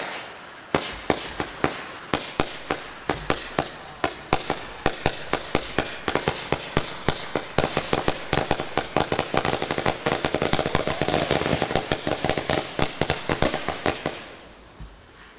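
Fireworks battery firing a rapid sequence of shots: sharp launch reports a few a second at first, growing denser and running together over a steady hiss, then stopping near the end.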